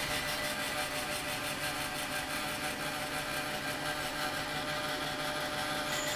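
Roll-In EF1459 band saw running steadily with its head fed into the material for a notching cut: an even mechanical whine with a few held tones.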